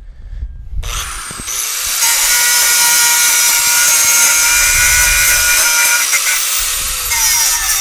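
Angle grinder spinning up about a second in, then grinding steel with a steady hiss to clean it to bare metal ahead of welding, and starting to wind down near the end.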